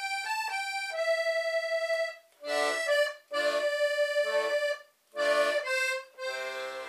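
Concertina (button accordion) playing a slow melody with sustained notes over chords. The phrases are broken by short silent gaps about two, three and five seconds in, and a chord is held at the end.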